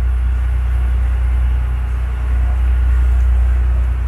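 Sportfishing boat's engine running steadily: a low, even drone with a hiss of wind and water over it.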